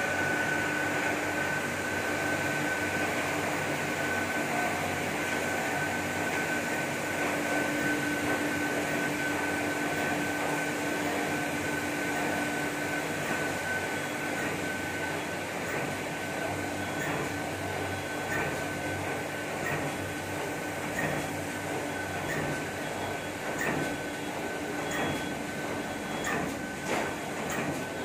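Automatic PVC film sheet-cutting machine running: a steady mechanical hum with a constant high whine, and from about halfway on, light regular clicks roughly once a second.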